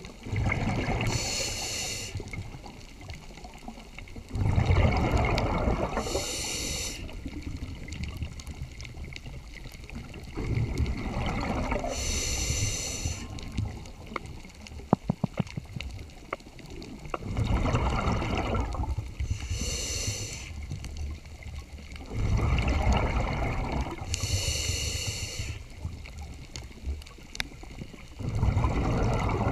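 Scuba diver breathing through a regulator underwater: a short hissing inhale, then a longer rush of exhaled bubbles, repeating about every five to six seconds. A quick run of sharp clicks comes about halfway through.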